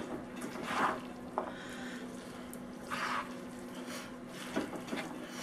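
Wooden spoon stirring a thick, wet mixture of shredded chicken, spinach and ricotta in a large bowl: a few soft squelches about a second apart, over a low steady hum.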